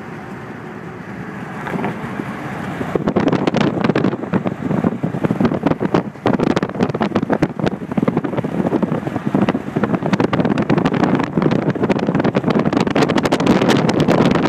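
Limousine road noise, with wind buffeting the microphone through an open side window as the car drives. The buffeting comes in about three seconds in and then stays loud and gusty.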